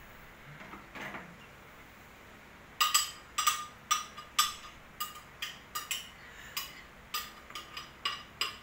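A spoon knocking and scraping against a blender jar as the last of the blended mango is emptied out. The sharp ringing taps start about three seconds in and come irregularly, roughly three a second.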